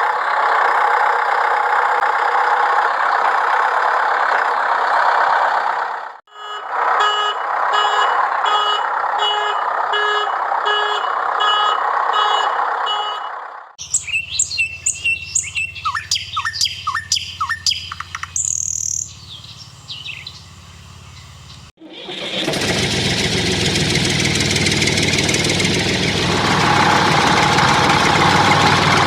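A DIY toy tractor's small motor whirring steadily, then a run of evenly repeating pulsed tones. Birds chirp rapidly for several seconds, then the motor whirr returns near the end.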